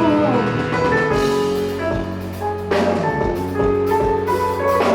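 Gospel band playing an instrumental passage between sung lines: drum kit, bass and sustained keyboard or guitar chords, with no singing.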